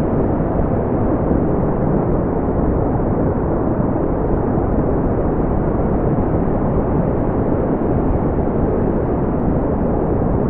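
Steady synthetic brown noise: an even, deep rumbling hiss with most of its energy low down and nothing above about 4 kHz, unchanging throughout.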